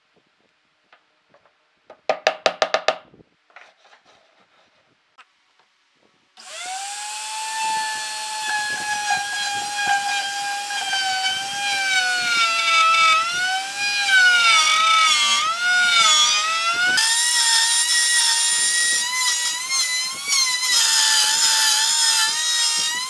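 Electric plunge router starting up about six seconds in and running with a high whine. Its pitch dips and recovers as the spinning bit cuts a circle into a wooden tabletop on a trammel arm, and the sound turns harsher about seventeen seconds in. A short rapid clatter comes about two seconds in, before the motor starts.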